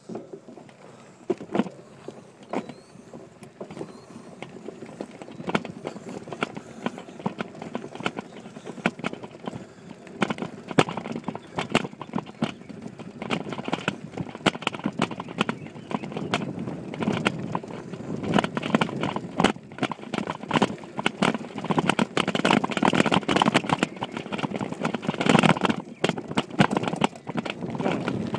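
Mountain bike rattling and clattering over bumpy grass and dirt, picked up by a phone in a waterproof case on a handlebar mount, with wind rushing over it. The knocking grows louder and busier through the second half.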